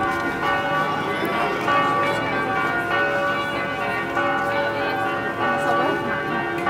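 Church bells ringing, several tones overlapping and dying away slowly, with people's voices talking underneath.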